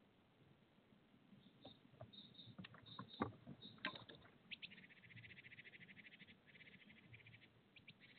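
Tawny owl scrabbling and knocking on the dry wood of a hollow tree trunk as it comes up onto the rim of its nest cavity: a string of faint scrapes and taps. From about halfway through, a rapid high rattling trill comes in short runs.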